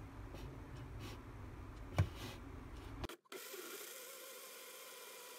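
Light handling noises with one sharp click about two seconds in, then a small electric blender starts abruptly about three seconds in and runs steadily with an even motor whine, blending milk and fruit.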